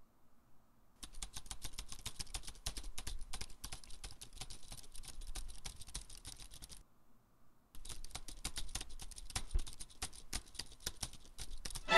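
Fast typing on a computer keyboard: a dense run of key clicks that starts about a second in, pauses for about a second just past halfway, then resumes.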